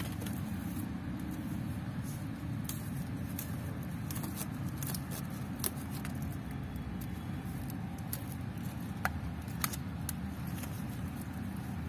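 Thin plastic grafting strip crackling and clicking in scattered sharp snaps as it is stretched and wound around a mango graft, over a steady low rumble.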